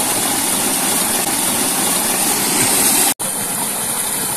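Water gushing steadily from an irrigation pipe outlet and splashing into a pit, a continuous rush broken only by a momentary dropout about three seconds in.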